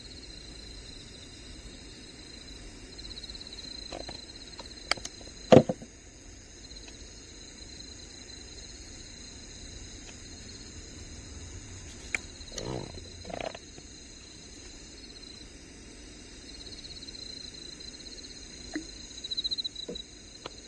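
Insects trilling steadily in a high, pulsing chorus, with a few scattered knocks and thumps, the loudest about five and a half seconds in.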